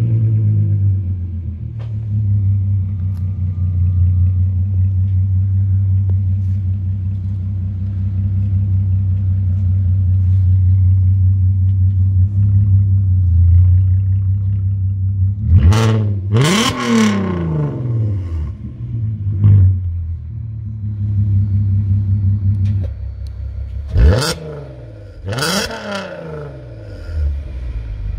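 Volkswagen Golf R32 (Mk5) 3.2-litre VR6 idling steadily through an aftermarket stainless sport exhaust with cut-out bypass valves, heard at the twin tailpipes. The throttle is blipped in two quick pairs, about 16 seconds in and again around 24 to 25 seconds, each rev rising and dropping back sharply to idle, with a smaller blip in between.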